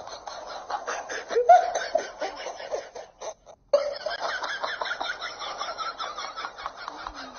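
A person laughing in short repeated bursts, broken by a brief gap a little over three seconds in.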